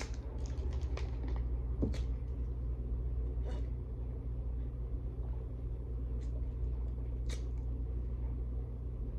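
Steady low hum of background noise, with a few soft clicks and small sounds from drinking out of a plastic water bottle.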